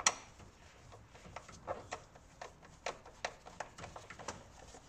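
Irregular light clicks and taps of a hand tool working the Torx screws on a van's air filter housing as they are loosened, the sharpest click right at the start.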